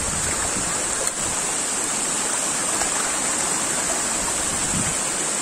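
Steady rush of a waterfall plunging into its pool and of the shallow stream running over rocks below it.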